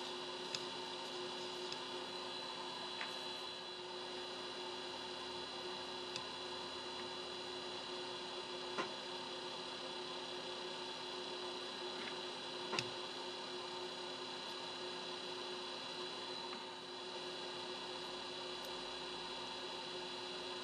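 Steady electrical hum made of several constant tones, low and high, over a faint hiss, with a few faint clicks, the most noticeable about nine and thirteen seconds in.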